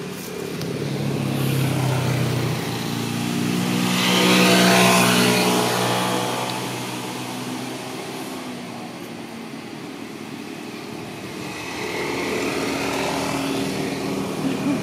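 An engine passing by, growing louder to a peak about four to five seconds in and then fading away; a second, fainter engine approaches near the end.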